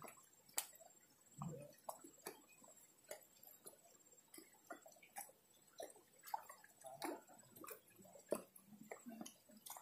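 Near silence: faint outdoor background with scattered small clicks and a faint, steady high-pitched whine.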